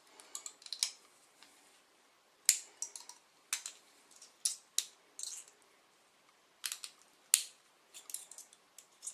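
Irregular sharp clicks and light ticks of a steel paperclip wire being twisted by hand into a tension wrench, with two louder snaps about two and a half and seven seconds in.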